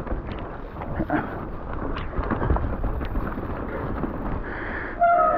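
Mountain bike riding fast down a wet, muddy trail: tyres rumbling and splashing over mud and roots, with frame, chain and suspension knocking and rattling and wind across the microphone. A short, louder steady squeal comes just before the end.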